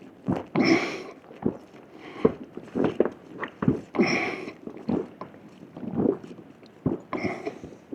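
A person gulping carbonated soda straight from a large bottle, swallowing about once a second, with several louder gurgling rushes of air and liquid in the bottle.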